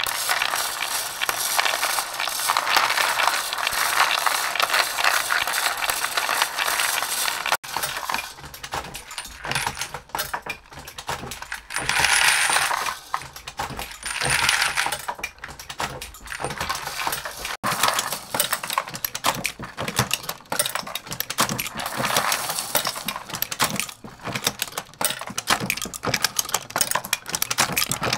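Rotating bowl feeders for 9mm reloading clattering steadily as they sort and tumble coated bullets and brass cases: a dense, continuous rattle of many small clicks of plastic and metal pieces. It grows louder for a couple of stretches midway, with brass cases rattling in the case feeder.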